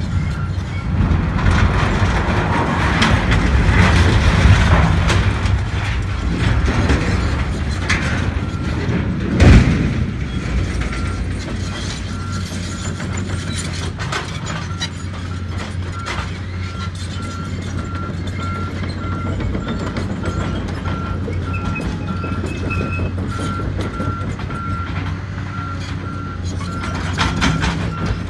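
A large steel structure being demolished: several seconds of loud metal noise, then one heavy crash about nine seconds in as it comes down. Afterwards a heavy excavator's diesel engine runs steadily while a reversing alarm beeps at an even pace.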